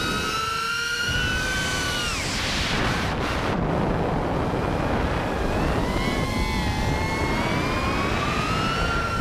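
5-inch FPV quadcopter's brushless motors and propellers whining, heard through the onboard camera. The pitch holds high, drops away about two seconds in as the throttle comes off, leaving wind rushing over the microphone, then climbs steadily through the second half as throttle comes back on.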